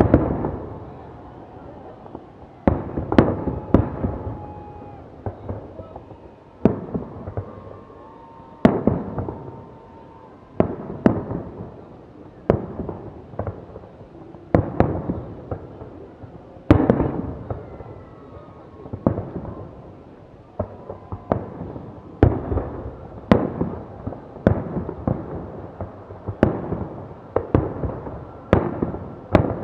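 Fireworks display: aerial shells going off in steady salvos, a sharp bang every second or two with some in quick pairs, each trailing off in a fading rumble.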